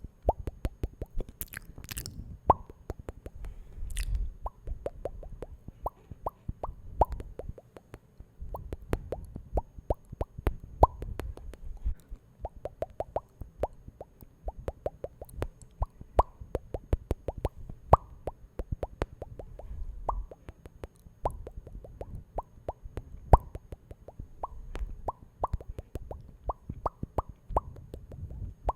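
Close-miked ASMR mouth sounds: rapid wet pops and clicks, several a second, that run on without pause.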